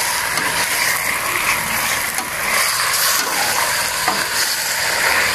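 Chopped chicken steadily sizzling in a hot pot as it is sautéed and stirred.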